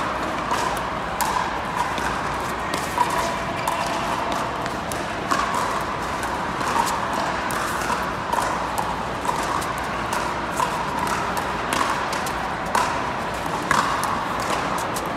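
Pickleball paddles striking a plastic ball in a rally, a run of sharp pops at irregular intervals, over the steady background noise of a large indoor hall.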